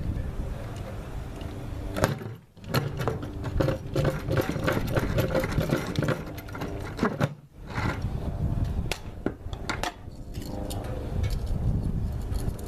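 Hand-powered drill boring through a plastic bucket or plunger, a rattly grinding with clicks, in three stretches split by two short pauses.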